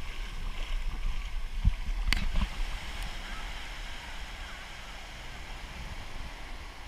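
Surf washing up on the shore, with wind rumbling on the microphone; a couple of short sharp knocks about two seconds in.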